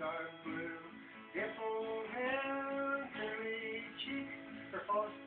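A man singing a song he learned as a child, holding each note for about half a second to a second as the melody steps between pitches.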